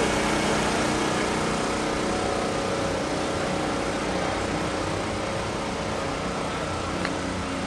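A steady engine drone with a constant hum, slowly growing fainter.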